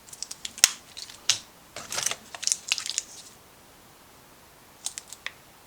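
Small boxes of drill bits being handled and rummaged through: a quick run of clicks and rattles for about three seconds, then a few light clicks near the end.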